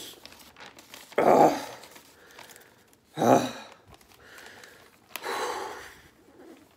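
A man crying: three bouts of heavy sobbing breaths, a couple of seconds apart, with quieter breathing in between.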